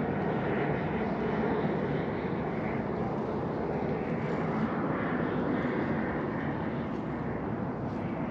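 Steady outdoor background noise: an even low rumble and hiss with no distinct events.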